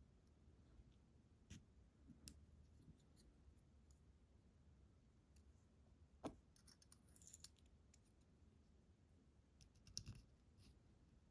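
Faint, scattered small clicks and taps of lock parts and tools being handled while a lock is put back together, the sharpest one about six seconds in and a short scratchy scrape just after it.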